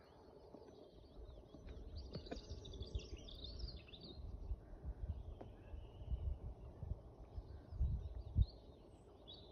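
Small birds chirping and singing in short phrases, strongest about two to four seconds in and again near the end, over a low, gusty rumble on the microphone.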